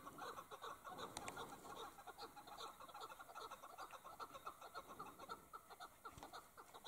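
Chukar partridges calling: a faint, unbroken run of short, rapidly repeated chuck notes.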